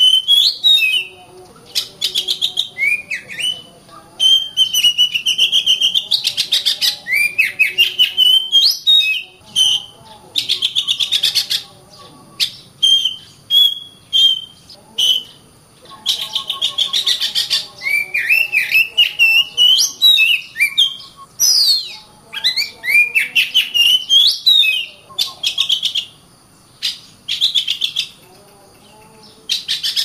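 Oriental magpie-robin singing a long series of varied phrases: rapid chattering clicks mixed with rising whistled notes, with short pauses between phrases and a longer pause near the end.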